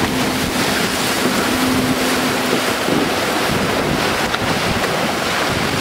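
Wind buffeting the microphone over the rush of water along the hull of a CATRI 24 trimaran under sail. A steady low hum sounds underneath and stops about three seconds in.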